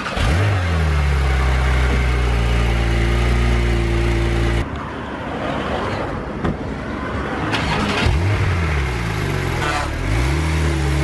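Porsche 911 Turbo's twin-turbo flat-six being revved while stationary. It climbs quickly to a steady, held high rev for about four and a half seconds. After a sudden change, it gives several rev blips, each falling away and climbing again.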